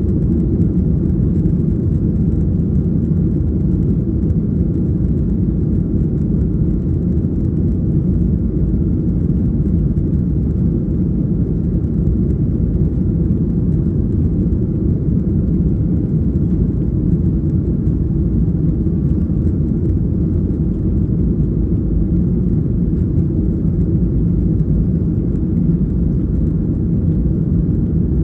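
Steady cabin noise inside a Boeing 737-800 in flight: a constant low rumble of airflow and engines that does not change.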